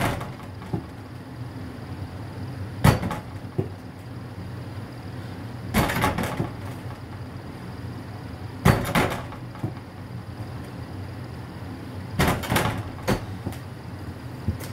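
Small Nerf basketball thudding against the backboard of an over-the-door mini hoop, rattling the door it hangs on, shot after shot about every three seconds, some hits followed quickly by a second knock as the ball rebounds.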